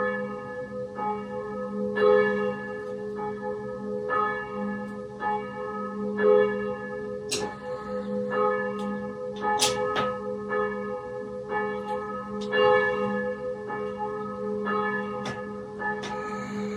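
Church bells pealing: one strike after another, about one or two a second, each note ringing on into the next over a steady hum, with a couple of sharper, brighter strikes about halfway through.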